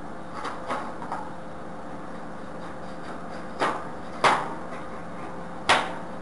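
Silicone sealant tubes being cut open and handled on a wooden workbench: a few light clicks early, then three sharp knocks of the hard plastic tubes against the wood about midway and near the end, over a faint steady hum.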